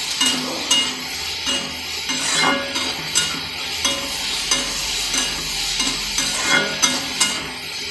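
Sliced onions frying in hot mustard oil in a kadai. A steady sizzle runs under irregular scrapes and clicks as a flat spatula stirs them around the pan.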